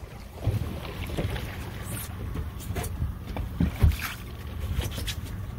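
Fishing boat's engine running with a steady low rumble, wind buffeting the microphone, and scattered short knocks and clicks, the loudest about four seconds in.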